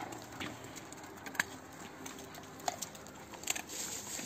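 Faint scattered clicks and taps from a pack of stray dogs crowding around food being handed out on wet asphalt, over a low background hiss.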